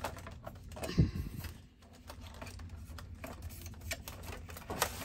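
Hard plastic parts of a facial steamer being handled and fitted together: scattered light clicks and taps, with one louder knock about a second in.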